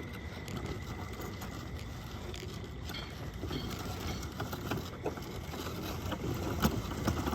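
A heavily loaded hand-hauled cart rumbling as its wheels roll over rough ground, with knocks and rattles from the load that grow louder and more frequent near the end.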